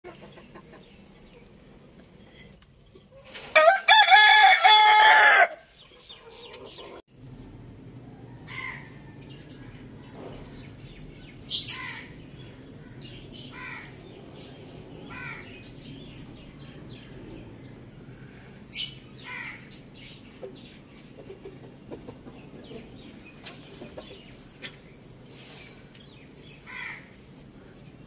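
A rooster crows once, loudly, for about two seconds a few seconds in. Afterwards come short, scattered bird calls over a low steady hum.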